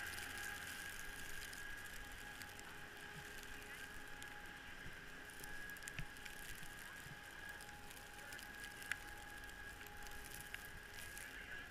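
Skis sliding over fresh snow, a faint steady hiss with a few small clicks, under a faint steady whine.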